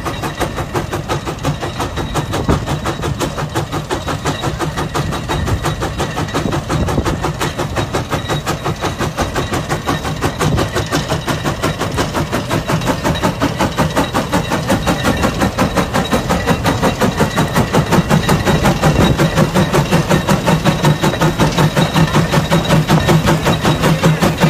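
CASE steam traction engine working hard under the load of a multi-bottom plough, its exhaust beating out a fast, even chuff. The chuffing grows louder in the second half.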